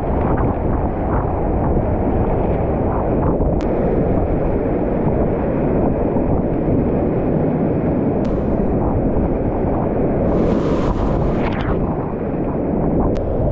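Whitewater rapids rushing steadily around a kayak, a dense low roar with paddle strokes splashing through it. A bigger splash washes over about ten seconds in, and a few sharp ticks sound along the way.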